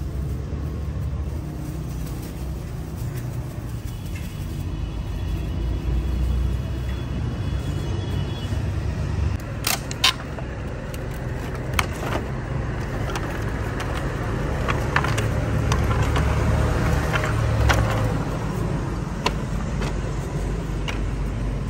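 Steady low rumble of road traffic, with sharp wooden knocks from pieces of firewood being handled from a crate about ten seconds in and a few more after.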